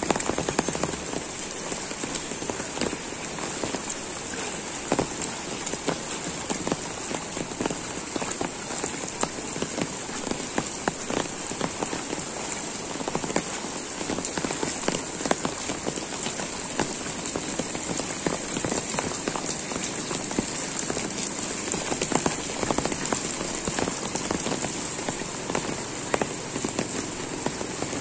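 Heavy rain pouring onto a flooded street, drops splashing into the standing water, with many sharp drop hits close by.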